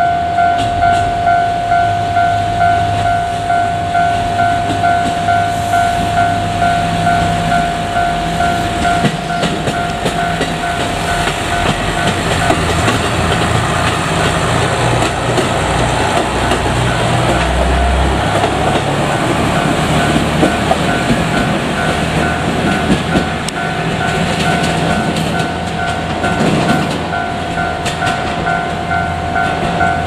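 A Japanese level-crossing warning bell rings steadily at about two strikes a second throughout. In the middle, a JR Kyushu KiHa 200 diesel railcar crosses, its engine rumbling and its wheels clattering over the rails.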